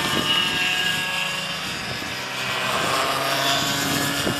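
Several racing go-kart engines, small two-stroke units, buzzing at high revs as the karts pass. Their pitches drift down and back up as the drivers lift for a bend and accelerate out of it.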